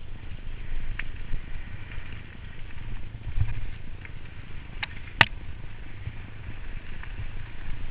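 Mountain bike riding over a rough path, heard through a bike- or helmet-mounted GoPro: a steady low rumble of wind and jolting on the camera, with scattered light rattles and one sharp click or knock about five seconds in.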